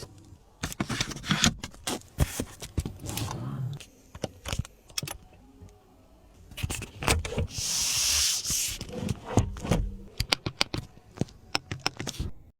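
A run of sharp clicks, knocks and scrapes from car fittings being handled, with a burst of hiss about eight seconds in.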